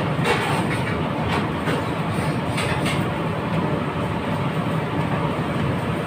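Steady roar of commercial kitchen machinery, such as exhaust hoods and burners, with scattered clinks and clatters of metal utensils.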